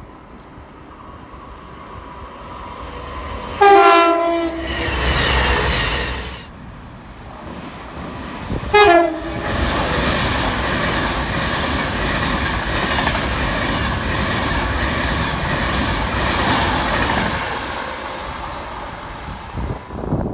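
A train sounds two short two-tone horn blasts, each stepping from a high note to a low one, about four seconds in and again about nine seconds in. It then passes at speed with a long steady rush of wheel and rail noise that fades near the end.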